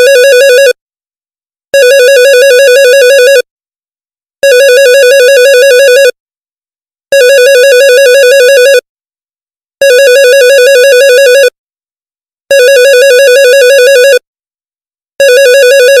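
Office phone ringtone: an electronic ring that warbles rapidly around one pitch. It comes in bursts of about a second and a half, repeating roughly every two and a half seconds with silence between.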